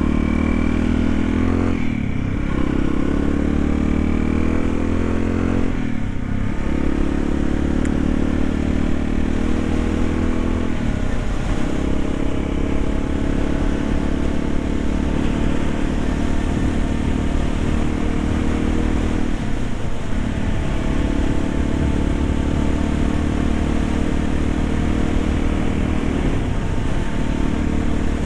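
A 1991 Yamaha XT350 enduro's single-cylinder four-stroke engine running under way. There are stretches of steady or slowly climbing revs, with several brief drops in revs.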